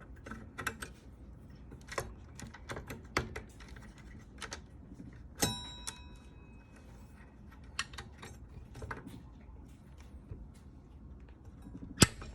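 Irregular metallic clicks and clinks of a hex key and small metal parts being handled while a scooter's rear brake caliper is unbolted. One clink about five and a half seconds in rings on briefly, and a sharp, loud click comes near the end.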